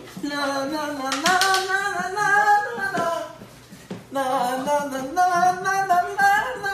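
A young man singing a playful, unaccompanied tune in a fairly high voice, in two phrases with a short break about four seconds in.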